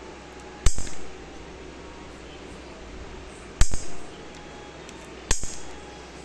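Three sharp knocks from a hard plastic toy being handled and set down, each followed by a brief rattle, over a steady low hum.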